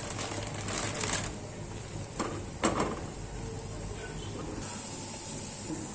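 A few short knocks and scrapes of cooking utensils against a pan, over a faint steady hiss.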